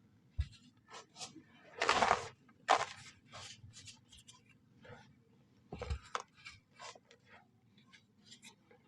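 Brown soft sand being crushed and crumbled, a run of short crunching strokes with a longer, louder crunch about two seconds in. A couple of dull low thuds come in between.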